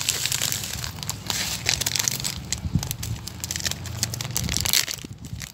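Thin plastic bag crinkling in the hand as Epsom salt crystals are tipped out of it into a glass bowl, with many small irregular crackles.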